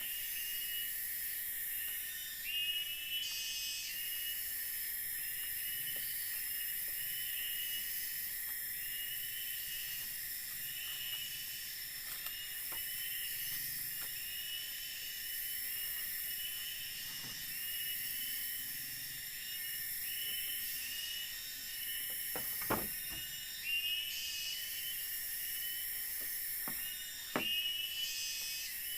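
Tropical forest insect chorus: a steady high-pitched buzzing with a short chirping call repeated about once a second. There are a couple of light knocks near the end.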